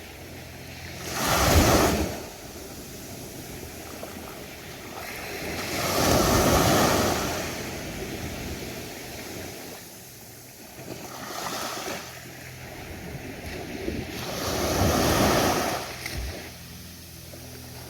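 Ocean waves breaking on a beach, each wave rising and falling in a swell of surf about every four to five seconds, with the loudest near 1.5, 6.5 and 15 seconds in. Wind noise on the microphone runs under the surf.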